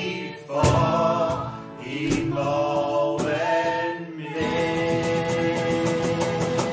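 Live band music: voices singing over acoustic guitar, electric bass, keyboard and cajon, with strummed and drummed strokes, then a long held chord through the second half.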